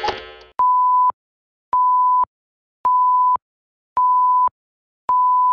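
Countdown intro sound effect: a bright shimmering whoosh tails off, then five evenly spaced beeps, each a steady high tone about half a second long, a little over a second apart.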